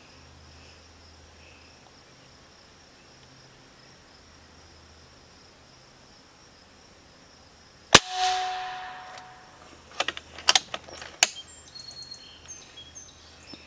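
A single shot from a Benjamin Bulldog .257 PCP air rifle about eight seconds in, sharp with a ringing tail that fades over about a second. About two seconds later come several sharp clicks as the action is cycled for the next slug.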